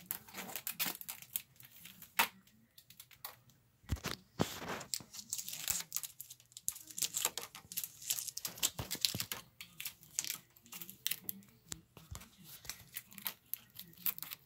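Clear protective tape being peeled off a computer monitor's plastic bezel: irregular crackling and ripping as the adhesive lets go, with a brief pause about three seconds in.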